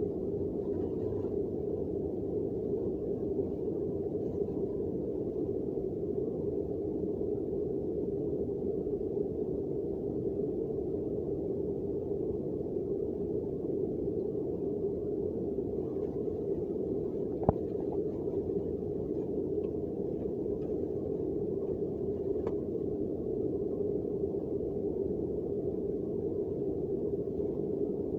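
Heavy rain falling steadily, a constant low rushing noise, with a few faint rustles and one sharp click past the middle.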